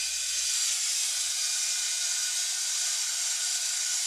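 Small hobby heat gun running, its fan blowing hot air with a steady rushing hiss and a faint motor whine.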